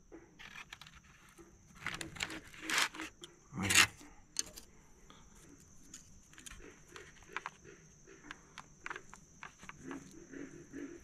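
Aluminium foil crinkling and rustling as it is pulled open from around a roasted acorn squash, in a few loud crackles within the first four seconds. After that come lighter clicks and taps of chopsticks working the soft squash.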